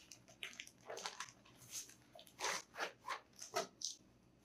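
Irregular crinkling and rustling of packaging being handled, a string of short crackles.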